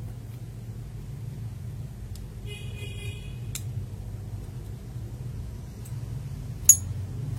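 A single sharp plastic click near the end as a mechanical keyboard switch is snapped open. A faint tick comes just before the middle, over a steady low hum, with a short honk-like tone about two and a half seconds in.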